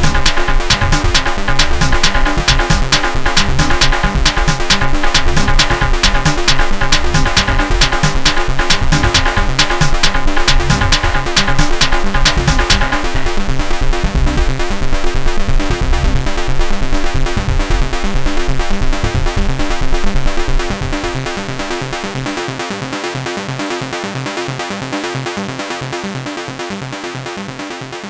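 Techno-style electronic pattern played on a small Korg Volca synthesizer, with a dense steady beat. About halfway through, the bright upper layers drop out. A little later the bass and kick cut out, and the remaining sequence fades down toward the end.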